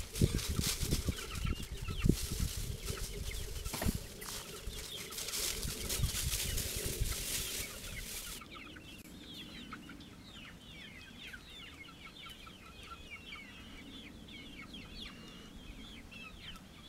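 Chickens clucking, many short calls in a steady stream. For the first eight seconds or so, rustling and wind noise with low thuds on the microphone covers them; after that the clucking is clear.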